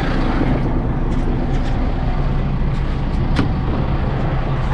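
An engine running steadily at a low, even pitch, with one short sharp click about three and a half seconds in.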